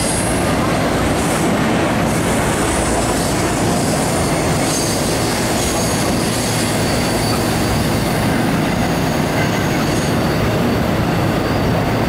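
Double-stack intermodal container cars of a freight train rolling steadily past, their wheels rumbling on the rails, with thin high-pitched wheel squeals coming and going.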